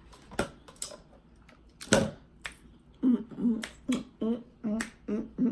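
Eating juicy cantaloupe up close: wet mouth clicks and smacks, then rhythmic chewing from about three seconds in, about three chews a second, each with a short low voiced sound.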